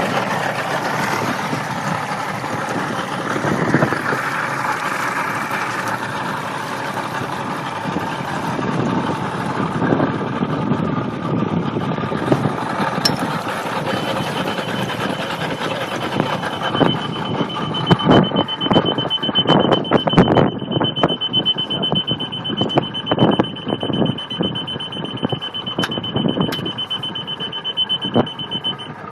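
A 1999 Mercury 200 V6 two-stroke outboard runs at speed, with wind and water noise over it. From about halfway a high, rapid beeping alarm sounds steadily until it cuts off just before the end. The driver says the alarm went off over the water depth, so it is the boat's depth alarm.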